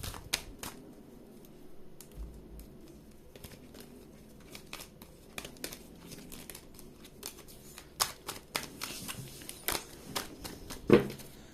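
Tarot cards handled by hand, shuffled and laid out: scattered soft clicks, slaps and rustles of card stock, with a sharper slap near the end.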